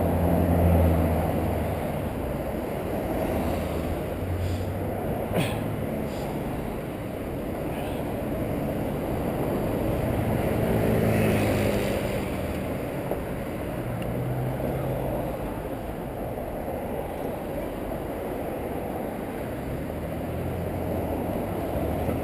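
Traffic on an adjacent multi-lane city road, heard over steady wind rush on a bicycle-mounted action camera. One vehicle passes louder about eleven seconds in, and there is a single sharp click about five seconds in.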